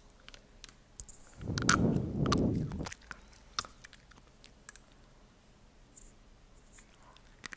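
Close-up eating noises from a spoonful of tobiko (flying fish roe): a spell of rustling and scraping about a second and a half in, then scattered small clicks from the mouth as the roe is eaten.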